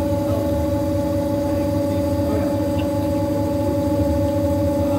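CNC milling machine spindle spinning a white plastic workpiece against a fixed cutting tool, turning it like a lathe as long chips peel off. A steady machine hum with a constant whine that holds unchanged throughout.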